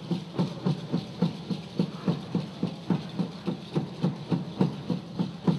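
Drums playing a steady, even beat of low strokes, about three a second, accompanying Afro-Haitian dance.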